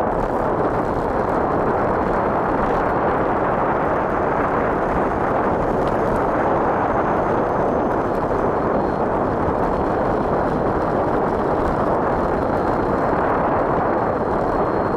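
Wind buffeting the microphone of a camera on a bicycle coasting fast downhill: a loud, steady, unbroken rushing noise.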